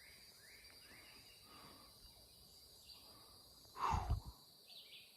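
Outdoor ambience with a steady high insect drone and faint short rising chirps, and one brief, louder sound with a falling note about four seconds in.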